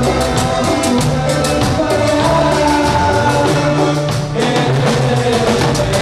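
Latin dance band music with a singing voice over drum kit and a stepping bass line.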